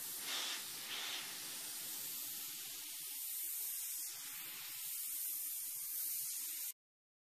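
Airbrush spraying paint: a steady hiss of compressed air that swells briefly twice in the first second or so and cuts off suddenly near the end.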